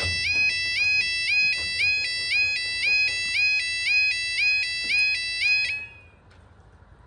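Level crossing yodel alarm sounding as the barriers lift: a loud electronic tone rising in each cycle, about three cycles every two seconds. It cuts off suddenly about six seconds in, as the barriers reach the raised position.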